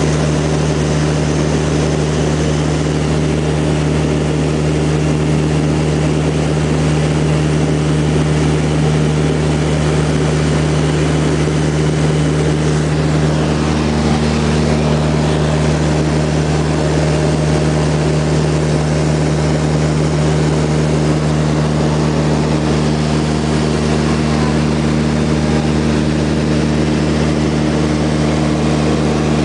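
Van's RV-8 light aircraft's piston engine and propeller droning steadily in flight, heard from inside the cockpit. A second, higher steady note joins about halfway through.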